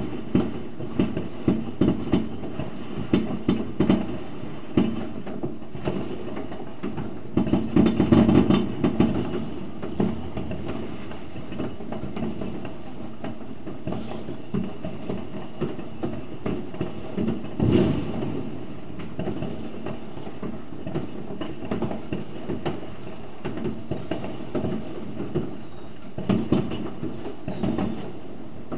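Many fireworks and firecrackers going off at once: a continuous, irregular rattle of bangs and crackles over a low rumble. A louder flurry of bangs comes about eight seconds in, and one sharp, loud bang a little past halfway.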